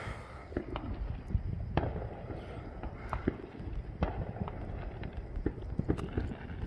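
Fireworks and firecrackers going off all around: many sharp pops and bangs at irregular intervals, some louder than others.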